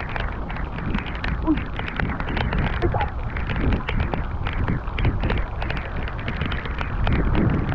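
Heavy rain falling on open water and on the kayak, heard as a steady, dense crackle of drop hits.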